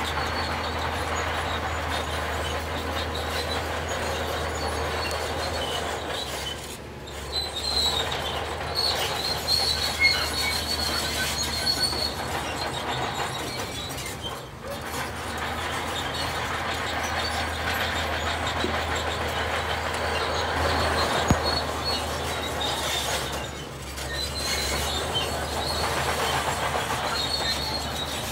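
A heavy machine's engine running steadily, with metal squealing and clanking over it, and a few sharp knocks. The sound drops away briefly three times.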